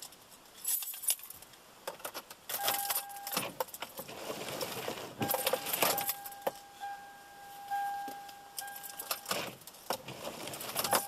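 Windshield wipers sweeping across dry glass on a Toyota Sienna, in repeated scraping strokes, with a thin steady squeal through the middle. The new blades still have their yellow plastic covers on, so plastic is rubbing on the glass.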